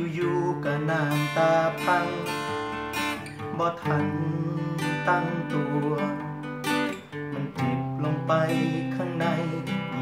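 Acoustic guitar played alone, strummed chords with picked melody notes between them, with a brief pause about seven seconds in.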